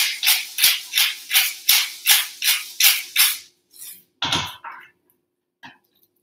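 Pepper grinder being twisted over the pot, a steady run of scratchy grinding strokes about three a second that stops after a little over three seconds. About four seconds in comes one louder knock, followed by a few faint clicks.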